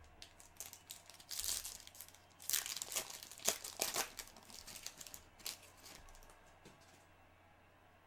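Foil wrapper of a Bowman Chrome card pack being torn open and crinkled by hand, a few seconds of crackling rustles that die down after about six seconds.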